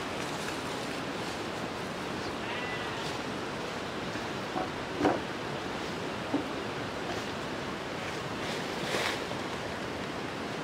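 A wooden pole knocking against forked wooden posts as it is lifted and set in place: a few short dull knocks around the middle, the loudest about five seconds in. Under them runs a steady rushing background noise.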